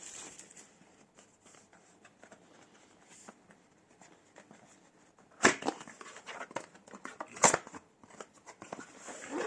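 Cardboard box and packaging handled during unboxing: light rustling and small scattered clicks, with two sharp knocks about two seconds apart past the middle.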